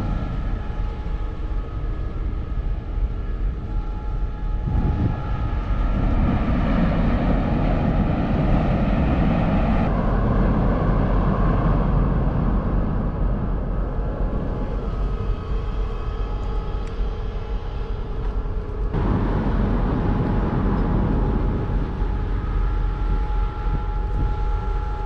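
Car ferry's engines running as it comes in to the berth: a steady low rumble with a faint steady hum above it. The sound shifts abruptly a few times.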